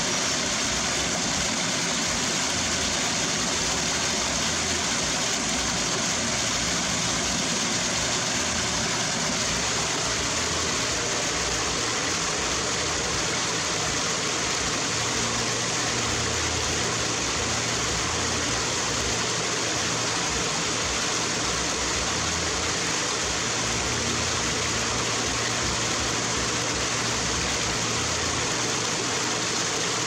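Small waterfall cascading over rocks into a pool: a steady, unbroken rush of water.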